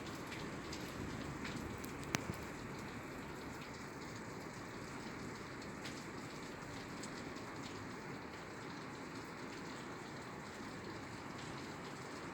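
Steady rain falling on a roof, with scattered single drops ticking and one sharper tick about two seconds in.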